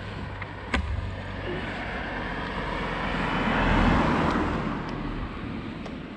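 A car passing by: its engine and tyre noise grows, is loudest about four seconds in, then fades away. A short sharp click comes under a second in.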